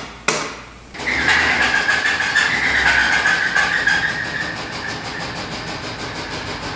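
Chevrolet Vortec 350 (5.7 L) small-block V8 running, with a high squeal that starts about a second in, loudest for a few seconds and then fading, over a fast light tapping. The squeal is the first symptom of the failing engine, which soon lost oil pressure and began rod knocking; its cause is unknown to the owner.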